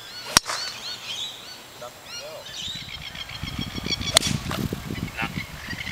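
Two golf club strikes on the ball, each a single sharp click, the first just under half a second in and the second about four seconds in. Birds chirp in the background.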